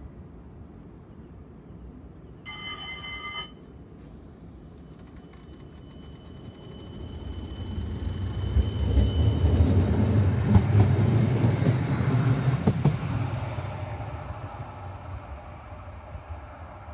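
A CAF Urbos tram pulls away and passes close by: a faint high electric whine, then a rumble of wheels on rails that is loudest about ten to twelve seconds in, with a sharp click near the peak, fading as the tram moves off. A short electronic chime sounds about two and a half seconds in.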